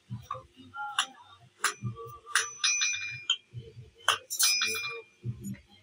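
Hand hammer striking metal on a small steel anvil in irregular blows. Two blows, about two and a half and four seconds in, leave a bright ringing that hangs for about a second.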